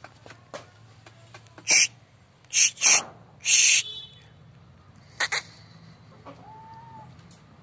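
A young rooster gives short, loud, harsh calls: about six brief bursts in quick groups through the middle, then one short clear note near the end.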